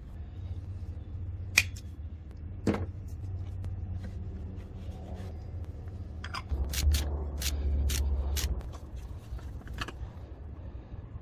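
Ratchet wrench with an oil filter cap socket clicking, a quick run of sharp clicks a little past the middle, as it turns the oil filter housing cap on a Toyota Camry 2.5L engine. There are a couple of single clicks earlier, all over a low, steady rumble.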